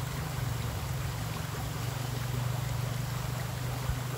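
A steady low motor hum over the even rush of a small river's flowing water.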